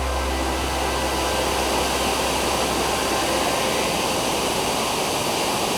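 Dzhuryn waterfall pouring into the canyon, a steady, loud rushing roar of falling water. A low musical drone fades out under it during the first few seconds.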